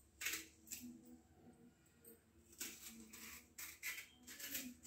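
Small kitchen knife scraping and slicing the tough peel off a raw green banana: a series of faint, short scraping strokes at irregular intervals.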